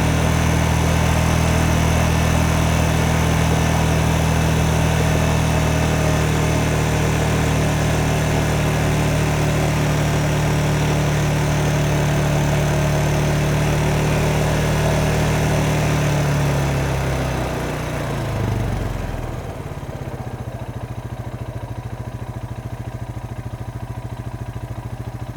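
Lawn mower engine running steadily at speed, then slowing about 17 seconds in and settling into a lower, quieter idle with a rapid even chug.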